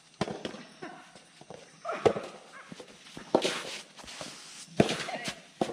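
Soft tennis rackets striking a rubber ball back and forth in a rally, sharp pops about every one and a half seconds, with short shouts from the players between the hits.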